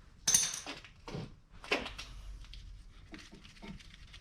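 A few short knocks and clinks as brake parts and tools are handled, the loudest about a third of a second in, then two more and some faint ticks.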